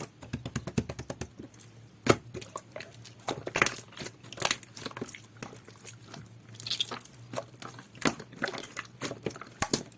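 A large batch of clear, jelly-textured slime squished and pressed by hand, giving irregular wet sticky clicks and small snapping pops, one sharper snap about two seconds in.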